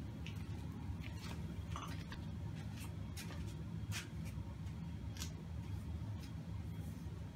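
Steady low hum with several short scuffs and clicks scattered through it: footsteps in flip-flops on a concrete floor and a bicycle seat post being handled.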